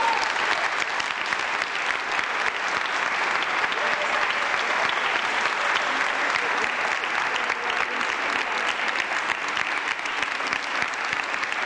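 Concert audience applauding, many hands clapping steadily.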